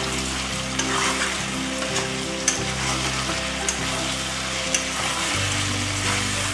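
Pork, potato and masala sizzling in a metal kadai on full gas flame while a metal spatula stirs and scrapes it, with a few sharp clicks of the spatula against the pan. The masala is being left to stick to the pan bottom and catch a little, then scraped loose: the dry roasting stage before water goes in.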